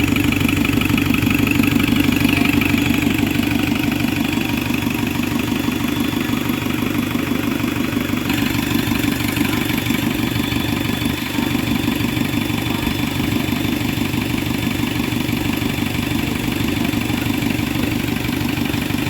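Isuzu 4JX1 four-cylinder turbo diesel running steadily at idle with an even pulse.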